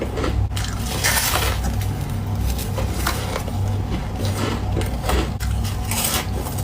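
Ice being bitten and chewed close to the microphone: crunching and crackling, with louder crunches about a second in and again near the end, over a steady low hum.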